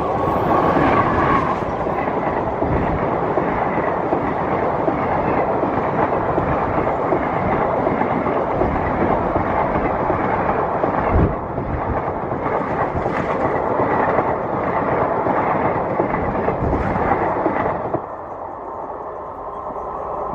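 Express train hauled by an electric locomotive passing close at high speed: a loud, steady rush of wheels on rails with clickety-clack and sharp knocks as the bogies cross rail joints. The last of a horn blast sounds in the first second or so, and the rush drops off suddenly about eighteen seconds in as the train clears.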